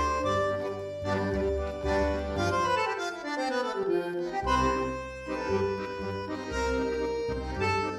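Background music: an instrumental tune of held notes over a changing bass line, with a run of falling notes about three seconds in.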